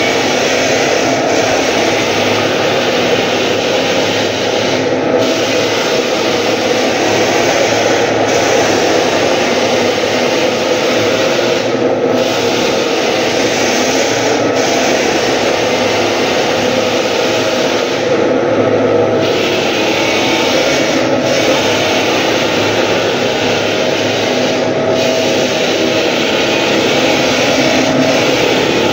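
Clarke 12 drum floor sander running and sanding a wooden floor: a loud, steady motor and abrasive drum noise. The high hiss dips briefly every few seconds.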